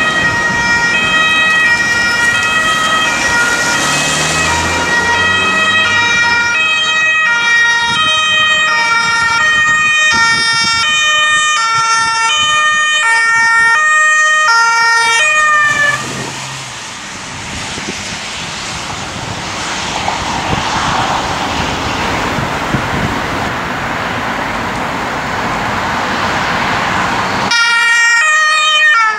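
Two-tone emergency siren (German Martinshorn) of a Red Cross command car, stepping back and forth between its high and low notes. It stops suddenly about halfway, leaving the noise of passing road traffic and tyres. The siren comes back near the end.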